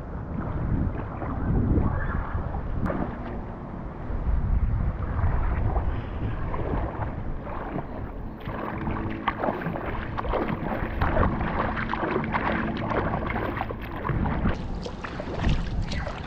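River water sloshing and splashing around a tube and the camera, with wind rumbling on the microphone. Muffled at first, then brighter, with many quick splashes from about eight seconds in.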